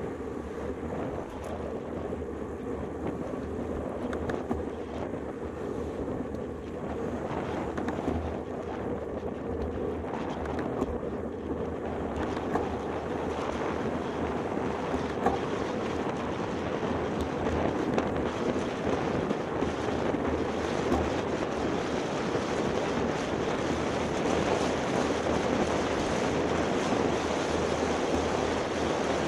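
Wind rushing over the microphone of a handlebar-mounted camera on a moving road bike, a steady noise that grows louder from about halfway through.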